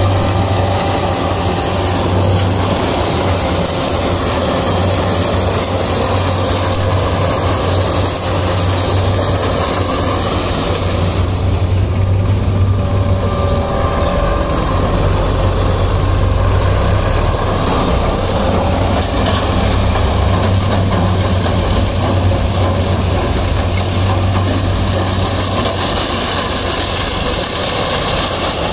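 CNH sugarcane harvester at work, its engine and cutting gear running with a steady low hum and no letup.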